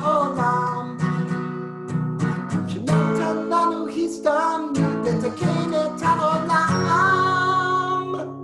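Acoustic guitar strummed in a steady rhythm, with a man singing a song along with it.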